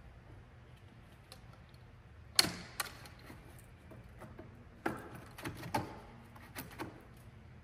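A window screen's frame being fitted into the window frame: a handful of sharp knocks and clicks, the loudest about two and a half seconds in with a brief ringing tail, and several lighter ones over the following few seconds.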